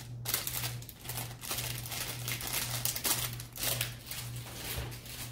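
Plastic crinkling and rustling as it is handled, in a run of short strokes, over a steady low hum.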